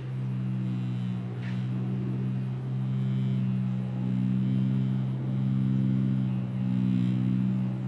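Theremin music: low, steady held tones that swell and dip in loudness every second or so.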